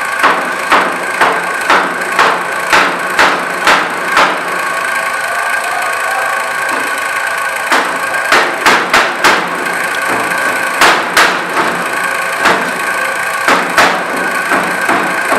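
Cleaver chopping onions on a plastic cutting board: quick chops about two a second, a pause of a few seconds, then shorter runs of chops, over a steady background hum.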